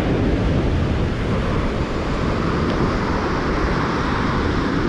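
Wind buffeting the microphone over the steady noise of breaking surf.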